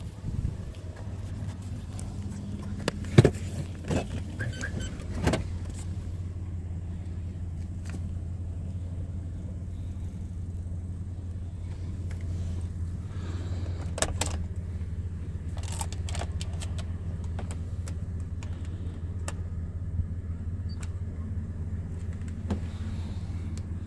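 Chrysler Grand Voyager's engine running with a steady low hum heard inside the cabin. Scattered clicks and knocks sound over it, the loudest about three seconds in.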